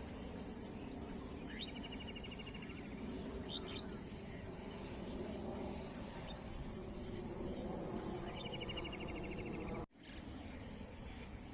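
Evening outdoor ambience: a steady high-pitched insect chirring, with a bird's rapid trill of repeated notes twice, about one and a half seconds in and again around eight seconds. A low background rumble runs underneath, and the sound cuts out for an instant near the end.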